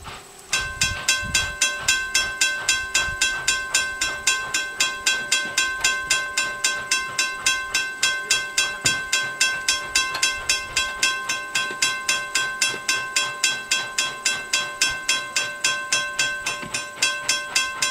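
Steam locomotive bell on Norfolk & Western Class J No. 611 ringing in a fast, even rhythm of about four strokes a second, starting suddenly about half a second in, as the engine approaches.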